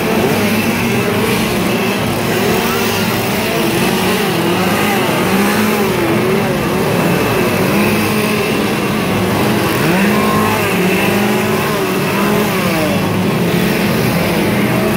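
Several gasoline chainsaws running and revving at once, their pitches rising and falling and overlapping in a steady, loud din.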